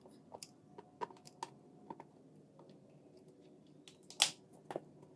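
Light clicks and taps of a hot glue gun and a hard plastic basket being handled, with one louder knock about four seconds in.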